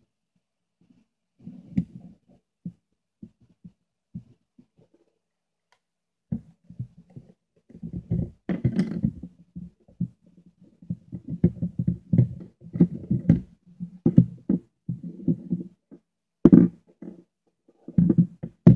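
Hands handling a plastic digital multimeter close to the microphone: irregular dull knocks, taps and rubbing on the case while working on its battery compartment and connector wires, sparse at first and busier from about six seconds in.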